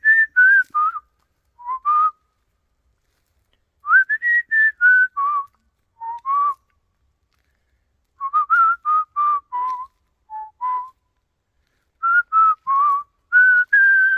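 Human whistling a tune in short phrases. Each phrase opens with an upward slide and falls in steps, with pauses between phrases and a long held note near the end.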